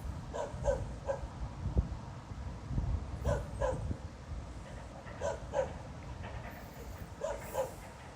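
A dog barking over and over, mostly in quick pairs of barks every couple of seconds, over a steady low rumble.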